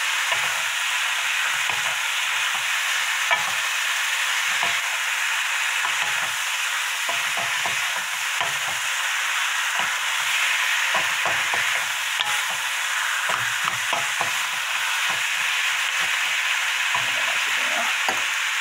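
Boiled pork skin, onion and green onion stir-frying in a frying pan: a steady sizzle, with irregular scrapes and knocks of wooden spatulas tossing the food against the pan.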